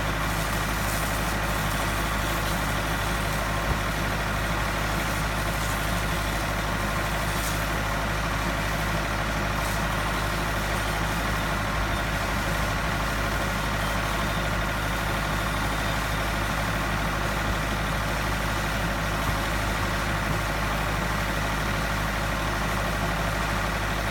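Steady engine drone of the high-pressure washing pump set running without change, with a constant hiss over it.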